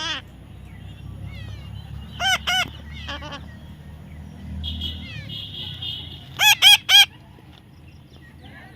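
A parrot giving short, shrill calls: two about two seconds in, then a thin steady whistle, then a loud run of three calls near the end.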